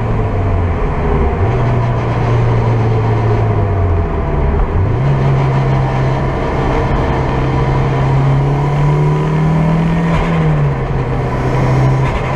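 Turbocharged Toyota 2ZZ 1.8-litre four-cylinder engine in a Toyota MR2 Roadster, heard from inside the cabin while driving. The engine note dips and picks up again a couple of times, then climbs steadily in pitch for several seconds and eases off near the end, over road noise.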